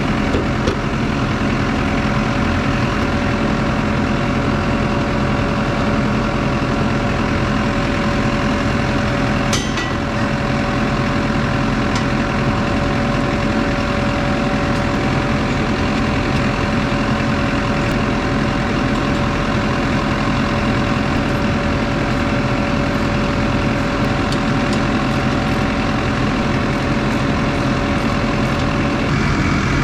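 Case 120 tractor's diesel engine idling steadily, just restarted after its battery went dead. A brief click about ten seconds in.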